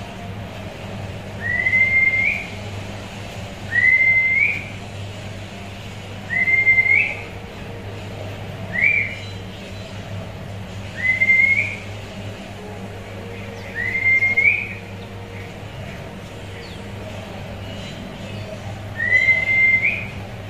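A clear whistled note, repeated seven times about every two to three seconds; each note holds steady, then rises sharply at the end. A faint steady low hum runs underneath.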